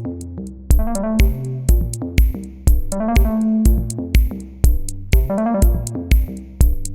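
Electronic background music: a steady drum-machine beat of about two kicks a second under synthesizer notes and chords.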